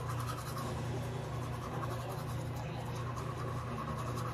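Toothbrush scrubbing teeth in rapid, steady back-and-forth strokes, over a steady low hum.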